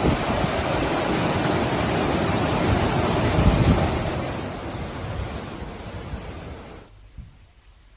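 Floodwater rushing in a torrent: a dense, steady rush of water with wind buffeting the microphone. It fades over the last few seconds and cuts off about seven seconds in.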